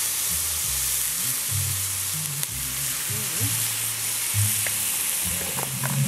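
Pork knuckles sizzling on a wire grill over charcoal, the beer-and-sugar glaze hissing where it drips onto the hot coals. The sizzle is steady, with a few faint pops.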